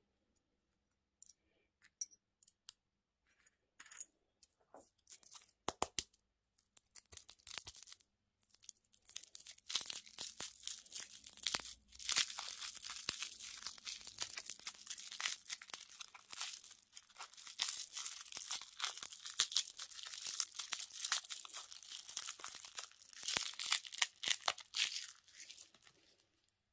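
Candy wrapper being crinkled and torn open. Scattered crinkles and taps come first; from about nine seconds in there is continuous crackling and tearing of the wrapper, which stops shortly before the end.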